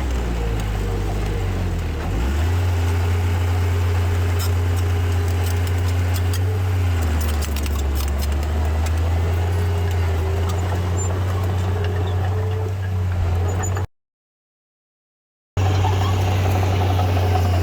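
Heavy construction machinery's diesel engine running steadily. It revs up about two seconds in and settles back down around seven seconds, with some light clanking. The sound cuts out completely for about a second and a half near the end.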